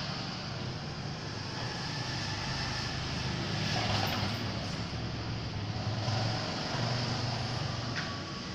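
KEY Automation SUN1124 sliding-gate operator running, with a low motor hum and rolling noise as the gate slides along its track, and a short click near the end.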